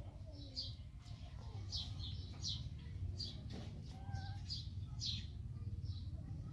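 A small bird chirping over and over, short high chirps coming about one or two a second, over a steady low hum.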